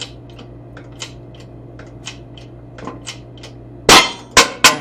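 Ball joint being pushed out of a control arm: metal clicks, about three a second, then three loud metallic bangs about four seconds in as the joint begins to let go.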